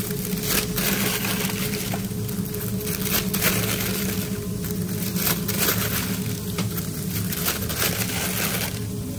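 Sheets of printed greaseproof food paper crinkling and rustling as they are pulled apart, crumpled and pressed into foam takeaway boxes, with a steady low hum underneath.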